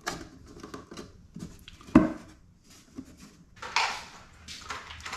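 Hand-handling noise in a woodworking shop: light knocks and clatter of wood and tools, with one sharp knock about two seconds in and brief scuffing sounds near the end.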